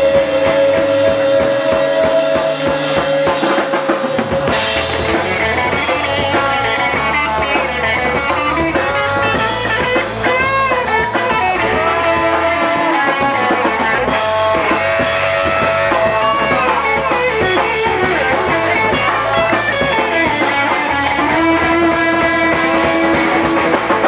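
Live reggae band playing an instrumental passage, with electric guitar, bass guitar and drum kit. A trombone comes in with a long held note near the end.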